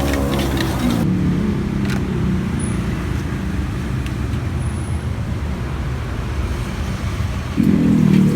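Road traffic: a motor vehicle engine running close by, with an abrupt change in the sound about a second in and a louder stretch near the end.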